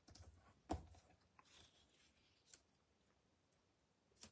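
Faint sounds of a card and a mask stencil being handled on a craft mat: a soft knock just under a second in, then a brief rustle and a few light ticks.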